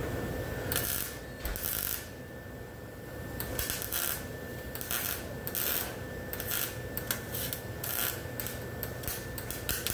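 MIG welder laying a series of short stitch welds on a steel patch panel, about seven bursts of half a second to a second each with brief pauses between. The welds are skipped around in short runs so that the sheet metal does not warp.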